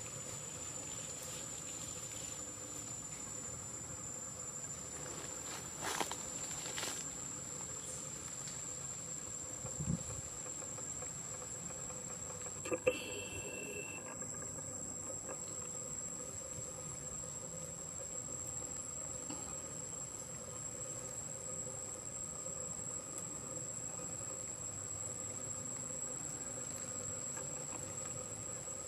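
Insect drone of the forest, one unbroken high-pitched tone held steady throughout. A few brief clicks and knocks break in, the sharpest about thirteen seconds in.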